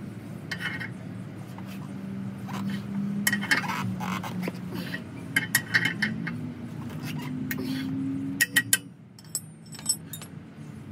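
Hand tools clinking against the steel bolts and nuts of a clamping tool bolted to a truck frame: a scatter of short metallic clinks and ticks in small groups, over a low steady hum.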